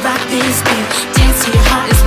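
Pop dance music with a steady beat. Deep kick drums that drop in pitch hit three times in the second half.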